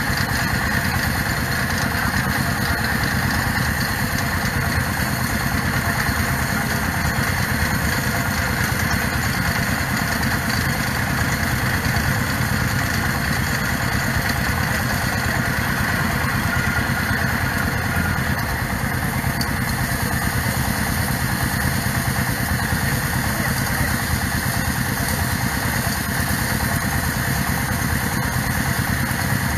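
Small engine of a portable water-well drilling rig running steadily while it drills.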